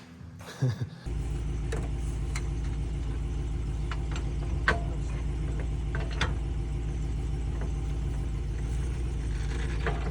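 An engine running steadily with a low drone, which comes in abruptly about a second in after a couple of brief knocks. Several sharp clicks sound over it.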